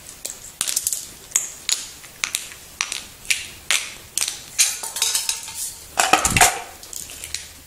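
Sharp metallic snips and clicks of side cutters cutting the wire links between the cells of a 6 V zinc-carbon lantern battery, with the cells clinking against each other as they are handled. A cluster of clinks and a dull knock comes about six seconds in.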